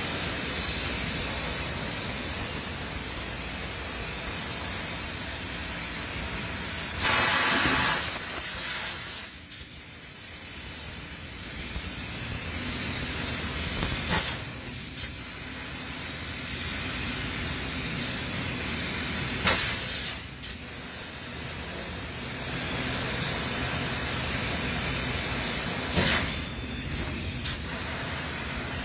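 Factory machinery making a steady hiss, with louder bursts of hissing about every six seconds, each followed by a short drop.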